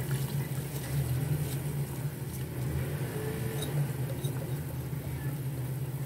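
Raw rice poured into a pot of boiling chicken stock, the grains falling into the bubbling liquid, over a steady low hum.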